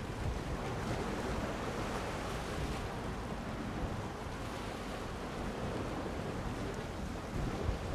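Wind buffeting the microphone in uneven low gusts over a steady hiss of sea and surf.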